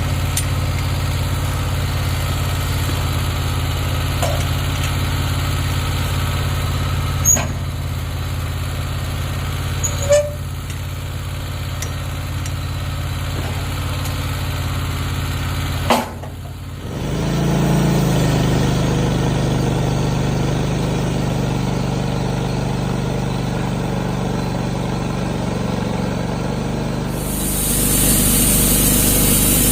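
Wood-Mizer portable sawmill's engine idling steadily, with a couple of sharp knocks. About sixteen seconds in a loud knock comes, the sound dips briefly, then the engine runs on at a fuller, heavier note. Near the end a brighter, louder hiss joins it as the band blade starts cutting into the red oak log.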